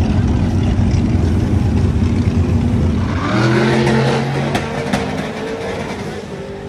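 Car engine running hard with a dense low rumble. About three seconds in it changes to a steadier pitched note with a couple of sharp clicks, then fades.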